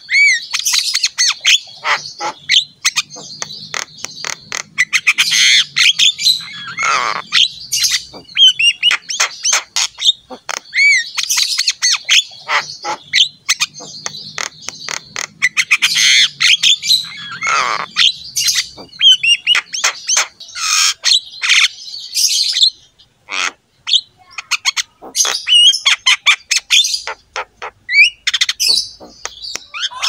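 Javan myna singing: long runs of rapid clicking chatter, harsh squawks and curving whistled notes, broken by short pauses, the phrases coming round again about every ten seconds.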